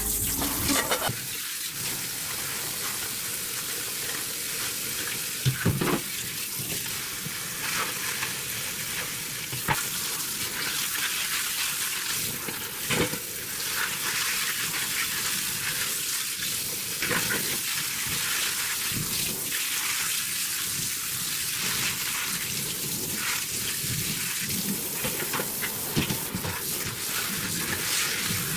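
Food sizzling steadily as it fries in a pan, with a utensil knocking against the pan now and then as it is stirred.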